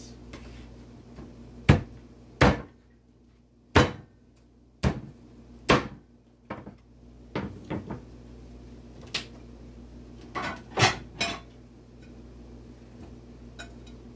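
Knife chopping fried chicken leg quarters into pieces: about a dozen sharp, irregular chops, the heaviest in the first half and lighter, quicker ones near the end.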